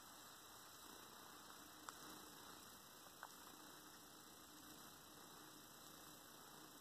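Near silence: a faint steady hiss and hum of room tone, with two tiny clicks about two and three seconds in.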